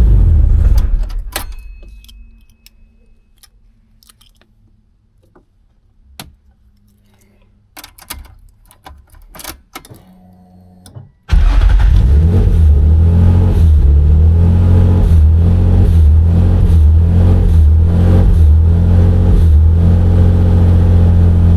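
Nissan 300ZX's V6 engine running, then shut off about a second in so that it dies away; a few light clicks sound in the quiet. About halfway through the engine is running again, loud and steady, as it is switched off and on from a push-start button.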